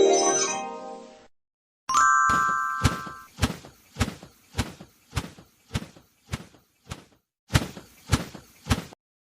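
Animation sound effects: a music cue fades out, then after a short gap a brief chime sounds, followed by a row of sharp, evenly spaced knocks about two a second, a short pause, and three more knocks.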